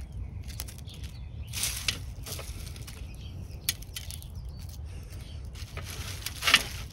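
Hands pulling dry dead leaves and soil off an uprooted succulent's roots: irregular rustling and crackling of dry leaves, loudest about a second and a half in and again near the end, over a low steady rumble.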